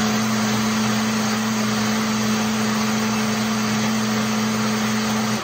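Countertop blender running at a steady high speed, blending crepe batter, a whir with a steady hum beneath it; it is switched off right at the end and winds down.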